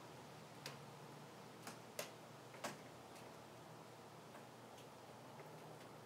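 Near silence with four faint, sharp clicks in the first three seconds, the last two the loudest.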